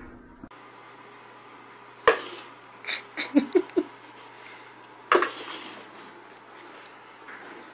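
A container stuck over a cat's head knocking against a hardwood floor as the cat moves. There is one sharp knock, then a quick run of about five knocks a second later, then one more.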